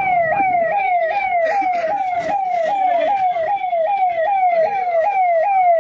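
Electronic vehicle siren sounding a fast, repeating falling sweep, about two and a half sweeps a second.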